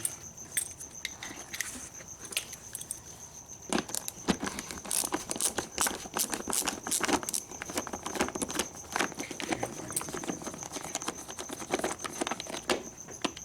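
Hand tools working two 10 mm bolts loose from a seat sensor bracket: irregular metallic clicks and clinks, busiest in the second half, as the bolts are turned out.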